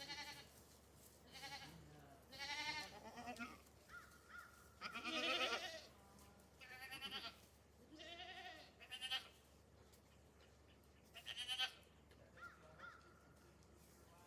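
Goats bleating: a run of separate quavering bleats, some high and thin, with the loudest and longest about five seconds in.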